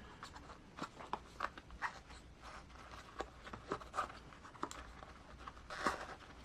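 Irregular light clicks and rubbing of small plastic beadlock wheel parts and a rubber tire being handled and fitted together by hand, with one louder click near the end.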